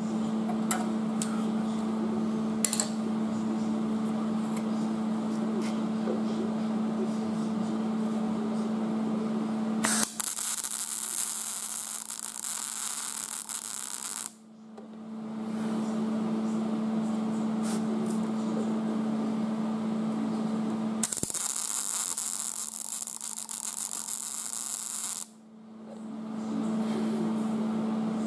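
MIG welder plug-welding sheet steel: the arc gives a steady buzz in three long runs. Twice it changes to about four seconds of sharp hissing crackle that cuts off suddenly.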